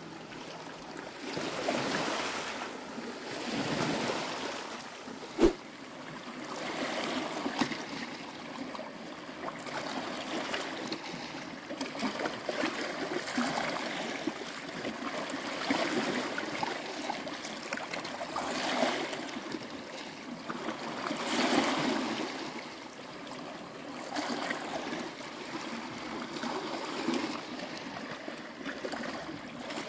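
Small sea waves lapping and washing over shoreline rocks, swelling and fading every few seconds. One sharp knock about five and a half seconds in.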